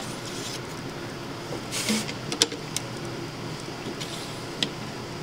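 Self-aligning bushings of a MendelMax 3D printer's Y carriage being worked by hand along steel smooth rods: a short sliding rasp about two seconds in, then a few light clicks and knocks. The new bushings are being pushed in every direction to smooth out their stiff first sliding.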